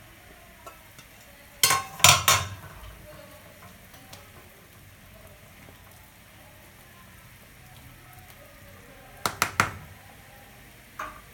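Metal pot lid clanking against a large metal cooking pot, three sharp clanks about two seconds in and another quick cluster near the end. Between them, quieter sounds of broccoli being stirred in the simmering water.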